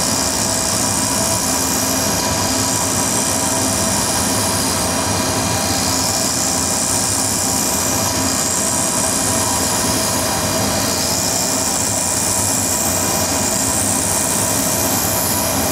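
CNC milling machine cutting a graphite electrode with a quarter-inch square end mill, spiralling down around the part's perimeter, while a vacuum hose draws off the graphite dust. The result is a steady hiss with an even whine under it.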